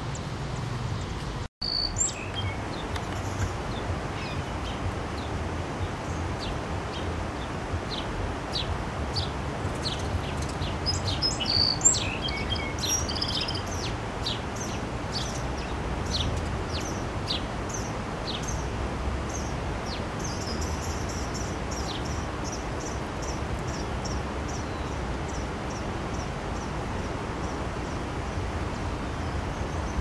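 Small songbirds chirping: quick, high, down-slurred notes, busiest a little before the middle, then a run of evenly spaced high notes that fades out in the last third. Steady outdoor background noise and a low rumble sit underneath.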